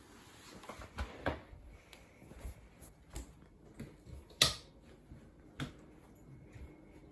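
A scattered series of small, sharp clicks and knocks, about a dozen, the loudest about four and a half seconds in.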